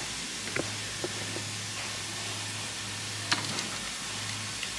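Steady background hiss with a low hum, broken by a few faint clicks and knocks from the phone being handled.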